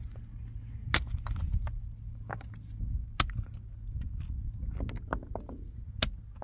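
Irregular sharp knocks and clatters, three standing out at about one, three and six seconds in, over a steady low rumble.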